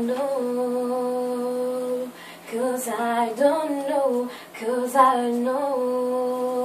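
A woman singing solo, with no instruments heard. She holds a long note near the start and another near the end, with quicker, wavering runs of notes between them.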